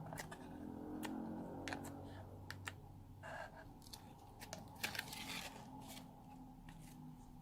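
Slime being squished and mixed by hand: scattered sharp clicks and pops from the slime, with longer crackling squelches about three seconds in and again around five seconds.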